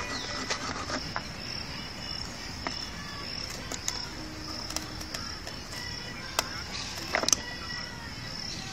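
Steady high-pitched insect chirping, cricket-like, with a few sharp taps or clicks, the loudest about six and a half and seven seconds in.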